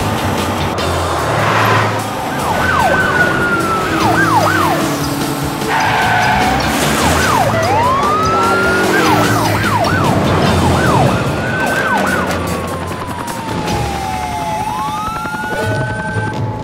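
Police-car sirens, switching between fast repeated yelping sweeps and slower rising and falling wails, one long fall and rise near the end.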